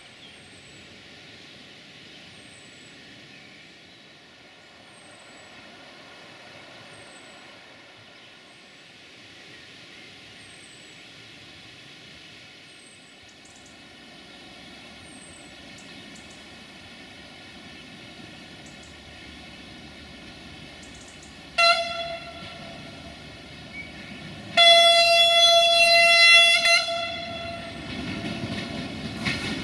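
Train horn sounding on one steady note: a short toot, then about three seconds later a longer blast of about two seconds. A low rumble of the approaching train builds near the end.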